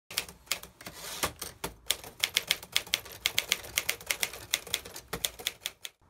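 Typewriter being typed on: a quick, uneven run of key strikes, about five a second, that stops shortly before the end.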